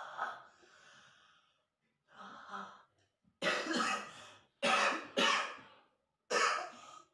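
A man coughing harshly in four fits, the middle two loudest, with a breathy exhale trailing off in the first second or so. The coughing is acted, part of a dying man's death throes.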